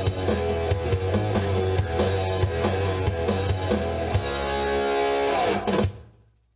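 Rock band with electric guitar, bass and drum kit playing the end of a song: a steady beat, then a held chord with cymbals from about four seconds in, a final hit near six seconds, and the sound dies away quickly.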